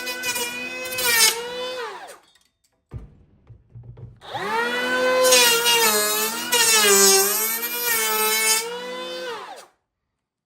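DEWALT 20V MAX brushless cordless planer making a cross-grain cut, its motor whining. The motor winds down about two seconds in, and there is a short knock near three seconds. It spins back up about four seconds in, its pitch dipping a few times as it cuts, then winds down again near the end.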